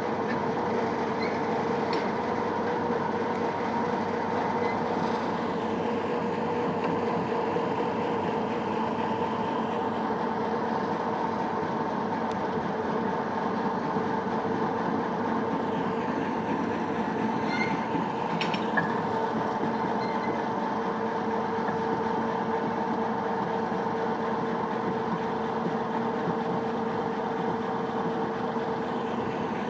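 Steady mechanical drone with a constant hum from a railway turntable turning with two small diesel shunting locomotives on it. A couple of light metallic clicks come a little past the middle.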